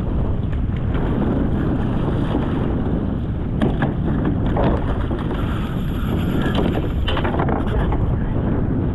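Wind buffeting the microphone over choppy water lapping at a kayak hull, with a few short splashes at the side of the kayak, around the middle and near the end, as he tries to gaff a hooked fish.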